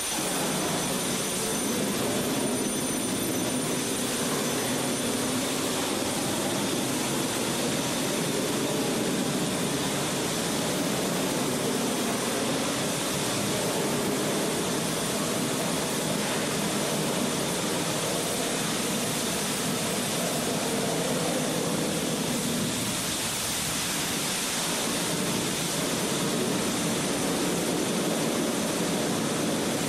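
Steady, unbroken roaring of a diesel fuel fire fed by pressurized diesel spraying from the piping, mixed with the rushing of a fire hose stream being worked against it.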